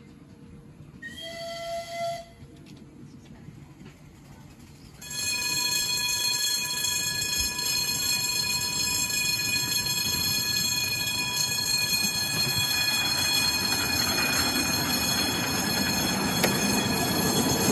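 A miniature railway locomotive's whistle sounds briefly about a second in. About five seconds in the level crossing's warning alarm starts, a steady electronic multi-tone sound that keeps going, and the miniature train rumbles up and over the crossing near the end.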